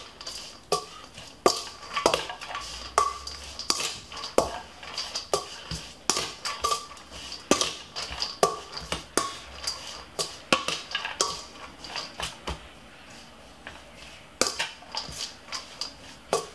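A long-handled metal spoon tossing spaghetti in a stainless steel mixing bowl: repeated clinks and scrapes against the bowl, which rings after each knock. The knocking pauses briefly about twelve seconds in, then resumes.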